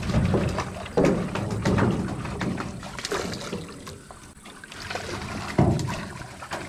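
Irregular splashing and sloshing of water around a small fishing boat, coming in uneven surges.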